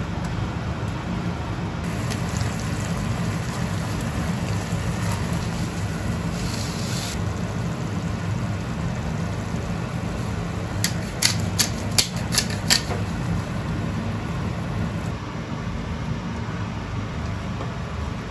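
Steady low fan hum from the kitchen under a frying pan of tomato sauce cooking on an induction cooktop, stirred with chopsticks. About eleven seconds in, a pepper grinder is twisted over the pan, giving about six sharp clicks over two seconds.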